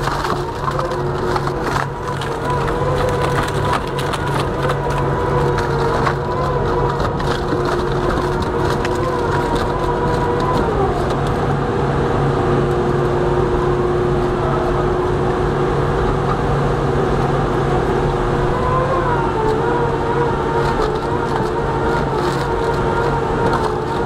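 Industrial toothed-rotor shredder chewing a whole log: wood cracking and splintering over the machine's steady drive drone. The cracks are sharpest in the first few seconds, and the drone's pitch dips briefly a couple of times.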